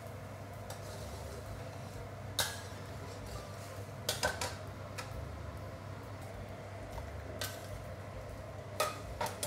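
A metal ladle and tongs clinking and scraping against a steel wok of hot water as broccoli florets are blanched, giving a few sharp knocks spread over several seconds. A steady low hum runs under them.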